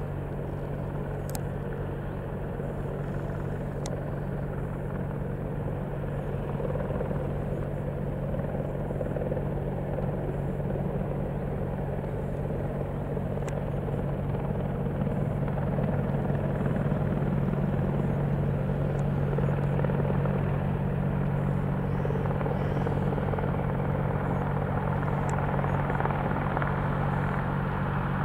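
AH-64 Apache attack helicopter in flight, its rotors and engines giving a steady low drone. The drone grows gradually louder over the first two-thirds, then holds.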